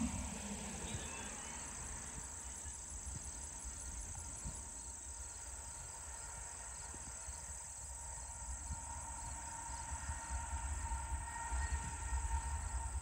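Distant diesel freight train approaching, led by a Union Pacific GE ES44AC locomotive: a low rumble with a faint steady whine that both grow louder over the last few seconds.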